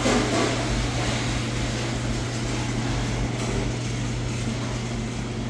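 Steady machine hum: an unbroken low drone over an even rushing noise, like a running ventilation or air-conditioning unit.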